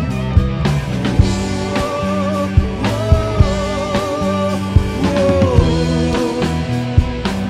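Rock band playing live, recorded straight from the mixing desk: electric guitar and bass over a drum kit in an instrumental stretch, with a held, wavering lead melody.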